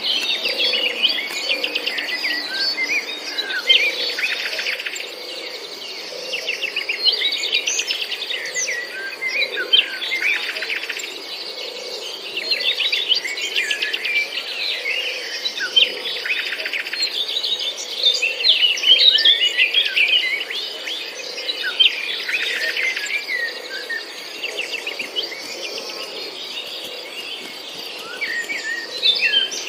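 Several garden birds chirping and trilling at once: quick high chirps overlapping with rapid rattling trills, and a fainter low pulse repeating about once a second underneath.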